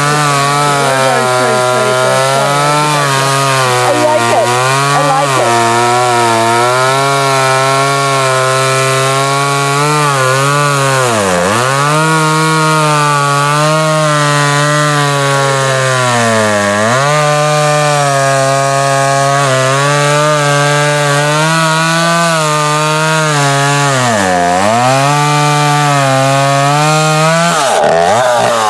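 Two-stroke chainsaw held at high revs while cutting through a tree root. Its engine pitch sags three times as the chain bogs down in the wood, then falls away near the end as the throttle is let off.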